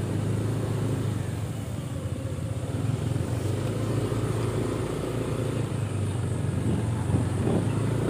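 Motorcycle engine running steadily at low speed while riding along a paved road, with a low hum and road and wind noise.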